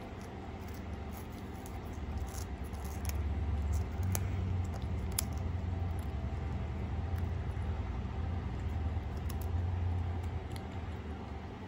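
A cat biting and chewing a crisp multigrain Sun Chip, with scattered small crunches and clicks. Under it a steady low rumble swells about two seconds in and eases off near the end.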